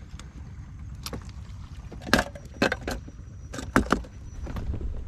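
Sea snail shells clinking and clacking as they are dropped by hand into tin cans, a scatter of sharp clicks with the loudest about two and four seconds in, over a steady low rumble.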